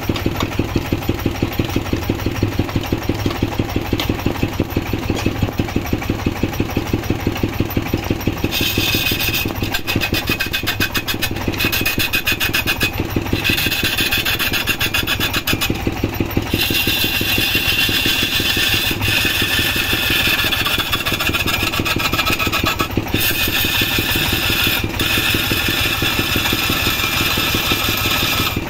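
A lathe's drive engine runs with a steady rhythmic beat. From about eight seconds in, a hand gouge cuts the spinning wooden vase blank in several long passes, giving a loud hissing scrape of wood shavings on top of the engine.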